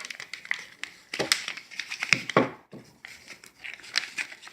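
Packaging crinkling and crackling in quick irregular clicks as a 10 oz silver bar is worked out of it by hand.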